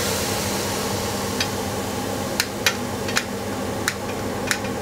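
Banana slices sizzling in a frying pan while a lighter is struck about six times, each strike a sharp click, without catching: the lighter is failing to light.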